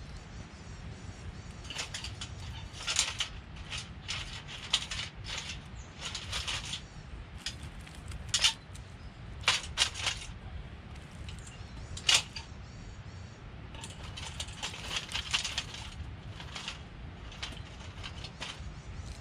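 Thin twigs and kindling being snapped and handled while a fire is laid, giving irregular sharp cracks and rustling clusters, with single loud snaps about halfway through, over a low steady rumble.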